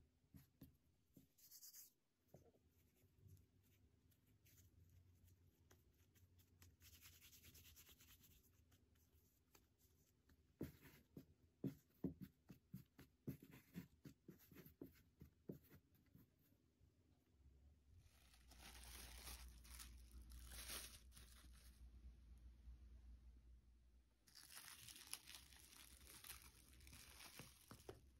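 Faint sounds of hands working soft bread dough on a floured silicone mat: pulling pieces apart and rolling them into balls. A run of quick small taps comes in the middle, then longer stretches of rubbing near the end.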